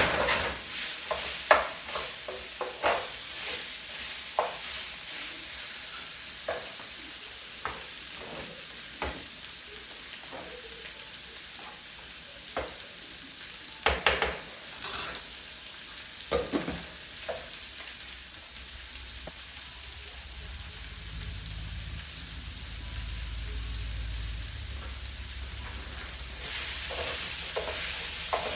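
Pot of seasoned beans sizzling on the stove while a spoon stirs, knocking and scraping against the pot now and then, with a louder run of knocks about fourteen seconds in and again around sixteen. A low hum joins in the last third.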